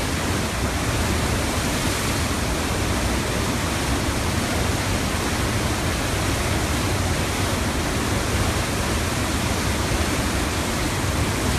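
Loud, steady rushing of a river in flood: the Tanaro's swollen, muddy torrent surging in high breaking waves.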